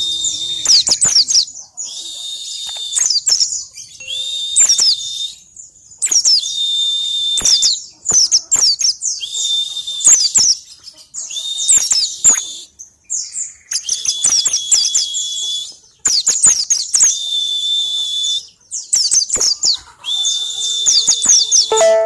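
White-eye (pleci) singing in the ngalas style: about ten high, rapid warbling phrases of one to two seconds each, separated by short pauses and filled with imitated calls of other birds.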